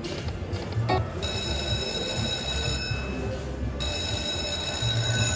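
Slot machine playing electronic music, with a steady high ringing tone that comes in about a second in and holds.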